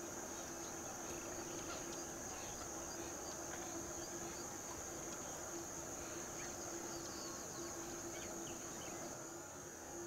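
Steady, high-pitched drone of an insect chorus, with a few faint bird chirps and a low steady hum underneath.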